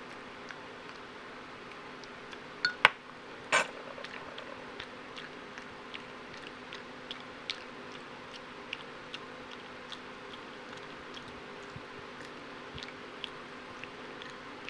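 Java macaque smacking her lips while chewing: small wet clicks, irregular, about one every half second to a second. A few seconds in, a metal spoon knocks against the ceramic mug and table, the last knock ringing briefly.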